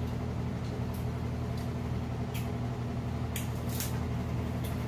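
A steady low hum runs throughout, with about six short, light clicks and taps of tableware as bowls and utensils are handled.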